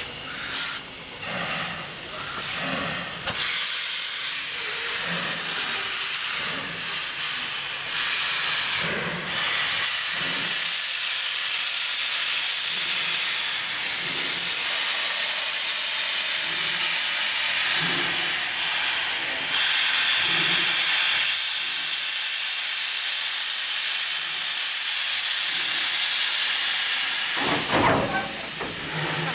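Puffing Billy narrow-gauge steam locomotive hissing steadily as steam blows out low beside its cylinders, with a short louder gust near the end.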